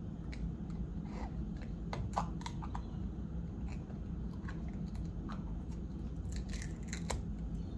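Screw cap of a plastic juice bottle being twisted by hand, giving scattered plastic clicks and crackles as the cap is worked to open it, with a cluster about two seconds in and another near the end. A steady low hum runs underneath.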